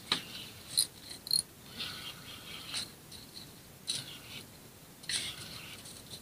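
Spinning reel cranked in short spurts while a metal jig is worked: irregular scratchy rasps, roughly one every second, over faint hiss.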